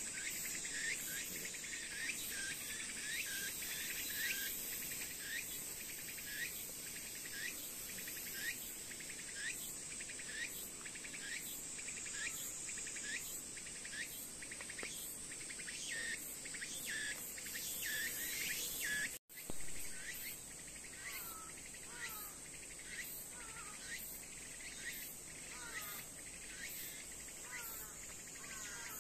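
Insects buzzing steadily at a high pitch, with short chirps repeating about twice a second. A few falling bird calls come in during the last third, and the sound drops out for an instant about two-thirds of the way through.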